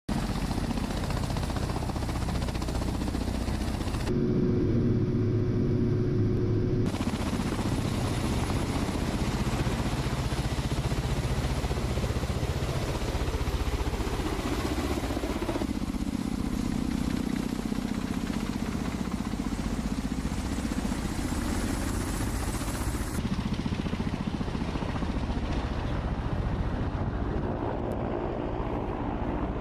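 Ka-52 Alligator attack helicopters running, their coaxial rotors and turbine engines making steady rotor and engine noise. The sound shifts abruptly several times as the footage cuts between clips, with a steady hum in one stretch a few seconds in.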